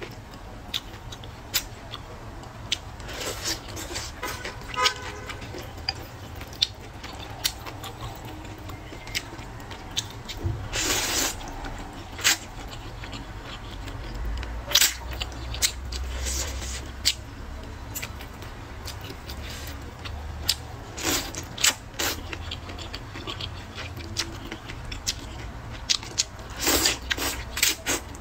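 Noodles slurped from a bowl of soup, with wet chewing and mouth clicks in between; the longest slurps come about 11 and 27 seconds in.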